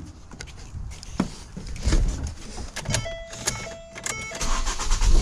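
Getting into a 2010 Ford Focus: a few knocks and clicks from the door and seat, then the car's warning chime sounds three times. Near the end the 2.0-litre four-cylinder engine is cranked and catches into a steady low idle.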